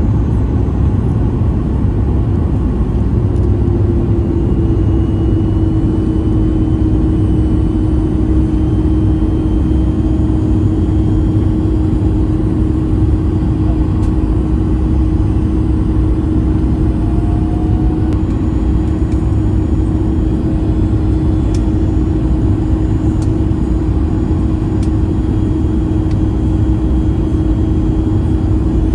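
Cabin noise of a Boeing 737 MAX 8 in descent on approach, heard from a window seat beside its CFM LEAP-1B engine: a steady, loud rush of airflow and engine drone. A few seconds in, a steady hum joins it and holds.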